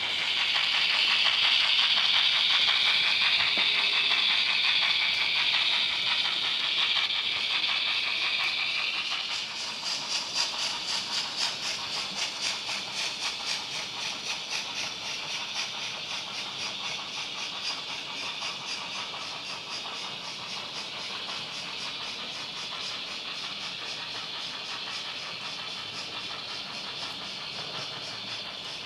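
Model locomotive sound on a model railroad layout. A loud hiss for about the first nine seconds gives way to a steady rhythmic beat, about two a second, that slowly fades.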